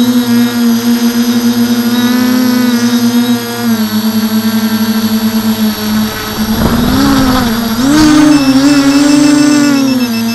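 Quadcopter's electric motors and propellers buzzing in flight, picked up by the camera on board. The pitch drops about four seconds in, then wavers up and down with the throttle over the last few seconds, and a high rapid beeping joins near the end.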